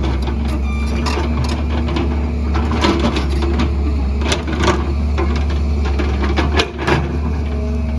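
Excavator working: its diesel engine running steadily under many irregular knocks and clatters, with a brief dip in the engine sound near the end.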